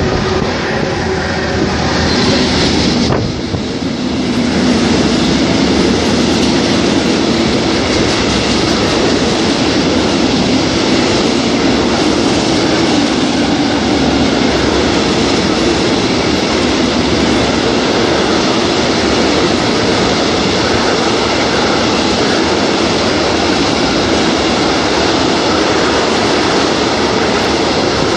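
A freight train passes close by. Its two electric locomotives go by in the first few seconds, then a long string of hopper wagons rolls past with a loud, steady rolling noise of steel wheels on the rails.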